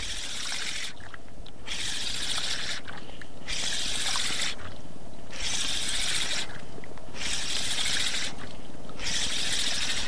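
A large saltwater spinning reel (Versus Carbontech 6000) being wound to bring in a hooked fish. It whirs in spells of about a second, roughly every two seconds, with short pauses between them.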